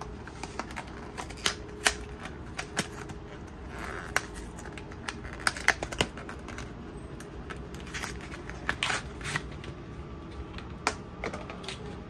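Irregular small clicks and taps of hands handling a boxed SSD and the opened computer's parts, a few of them sharp and loud, over a steady low background hum.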